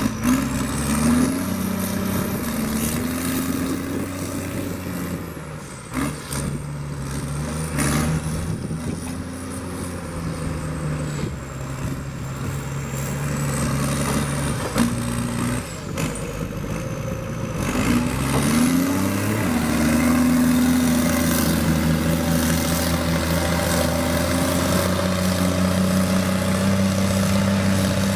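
Heavy diesel engine of logging equipment running under load, its pitch stepping up and down, then revving up about two thirds of the way in and holding steady and louder. A high whine wavers above it, and a few sharp knocks come in the first half.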